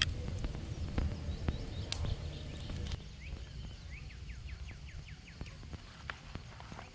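Scattered sharp clicks and crackles over a low rumble, with a quick run of about ten falling chirps from a bird starting about halfway through.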